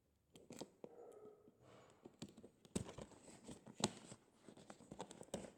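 Taped-up cardboard packaging being pulled and torn open by hand: scattered sharp clicks, knocks and scrapes of cardboard and tape, with the loudest knocks near the middle.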